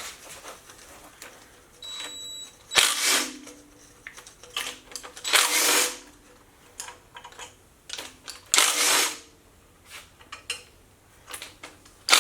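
Hand or power tools working on the front of a Ford 302 V8 during teardown, removing the pulley bolts: four short rasping bursts about three seconds apart, with light clicks and clanks between and a brief high whine about two seconds in.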